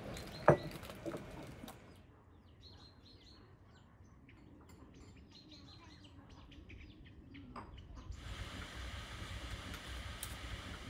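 A sharp clink of glass or tableware at a tea table about half a second in, then faint bird chirps; from about eight seconds in a steady hiss with a low rumble sets in.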